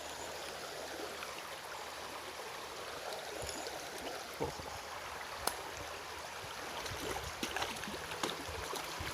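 Shallow, clear stream flowing over a shallow bed with a steady rush of water. A few light clicks and taps stand out, the sharpest about five and a half seconds in and a cluster near the end.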